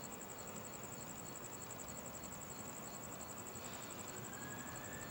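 Cricket chirping in a steady, evenly pulsed high trill over faint background hiss. A faint, slowly rising whine comes in about three-quarters of the way through.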